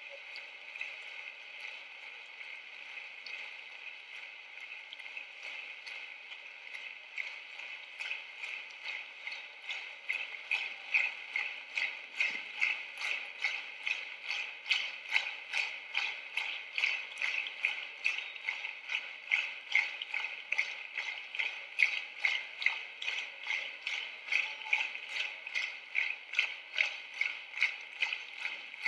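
Concert audience applauding. About ten seconds in, the applause turns into rhythmic clapping in unison, about two claps a second, growing louder.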